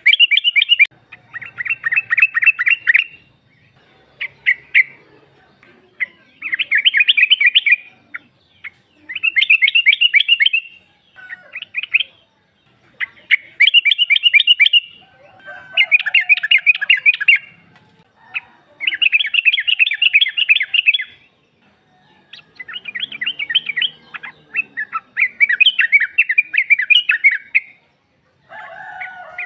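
Yellow-vented bulbul (trucuk), presented as a female calling to males, giving repeated bursts of fast chattering notes, each burst a second or two long with short pauses between.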